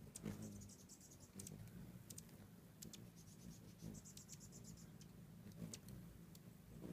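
Hummingbirds chattering in quick trains of high, rapid ticking chips, once just after the start and again about four seconds in, with scattered single chips between, over a faint low hum.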